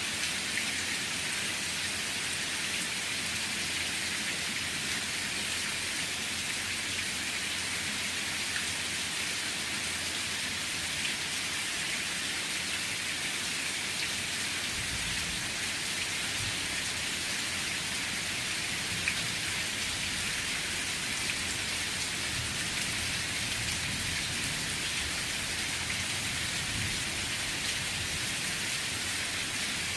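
Steady rain falling, an even hiss of drops. A low rumble joins about halfway through.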